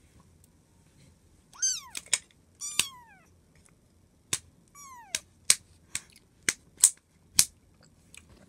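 A kitten meowing three times, each call sliding down in pitch, followed by a quick run of about seven sharp clicks over the next three seconds.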